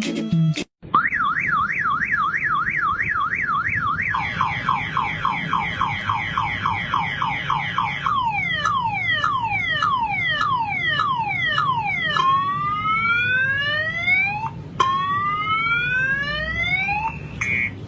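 Motorcycle anti-theft alarm sounding, starting about a second in and cycling through its siren tones: a fast up-and-down warble, a quicker chirping pattern, a run of falling sweeps, then two long rising whoops.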